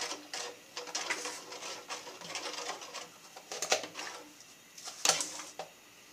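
Metal spoon stirring corn in coconut milk in a wide metal pan, with irregular scrapes and clinks against the pan; two sharper clinks stand out about three and a half and five seconds in.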